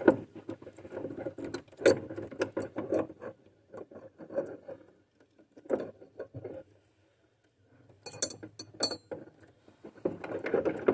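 Irregular clicks, taps and rattling of hand tools, screws and plastic parts being handled inside a GE top-mount refrigerator's freezer compartment during an evaporator fan replacement. It goes briefly quiet past the middle, then comes a quick run of sharp clicks.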